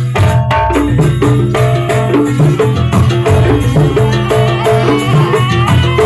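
Jaranan gamelan accompaniment: drums keep a fast, driving rhythm under metallophones stepping through a short repeating melody. About halfway through, a higher, wavering melody line comes in above them.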